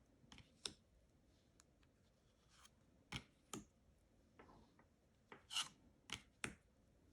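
Tarot cards being handled and flipped, with a few soft sliding scrapes and light snaps of card against card, about eight in all.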